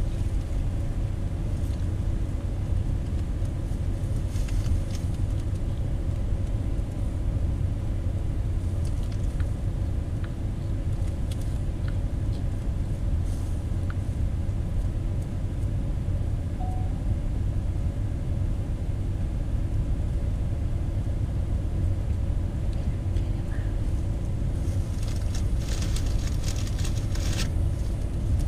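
Steady low road rumble of a car in motion, heard from inside the cabin, with a faint steady hum over it.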